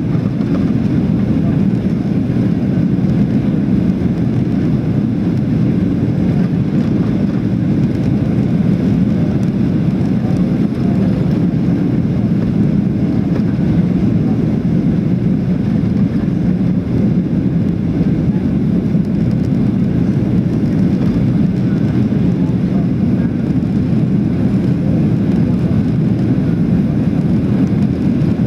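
Steady cabin noise inside a Boeing 737-700 on approach with flaps extended: an even, low rush of jet engines and airflow.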